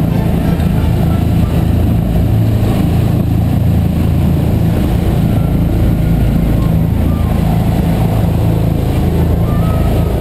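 Rescue helicopter hovering close overhead: loud, steady rotor and engine noise.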